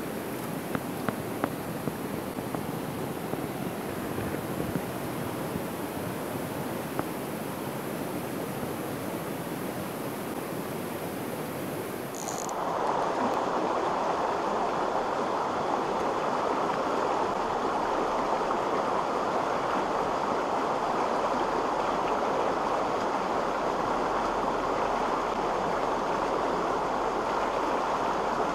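Rushing water of a shallow mountain stream over stones, with a few light ticks early on. About twelve seconds in it changes abruptly to a louder, steady rush of the stream running through a riffle and small cascade.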